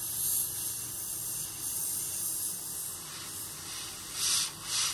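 Airbrush spraying paint, a steady hiss of air with two louder spurts near the end.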